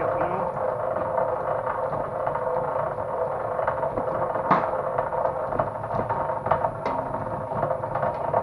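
Motor-driven copper wire stripping machine running with a steady hum, thick copper cable feeding through it, with scattered clicks and knocks.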